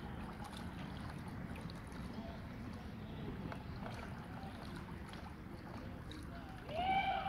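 Small boat under way on an electric trolling motor: a steady rush of water and wind with no engine note. A short rising call cuts in near the end.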